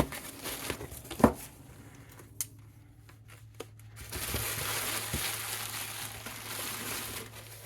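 Knocks and clicks of objects being handled, the loudest about a second in, then a steady hiss from about four seconds in, over a constant low hum.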